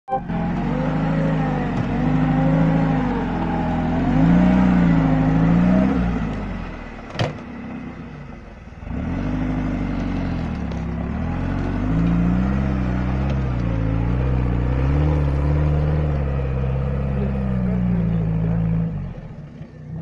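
Engine of an off-road trophy vehicle revving up and down over and over as it churns through deep mud ruts. The revs drop back for a moment after a sharp click about seven seconds in, then climb and fall again, easing off near the end.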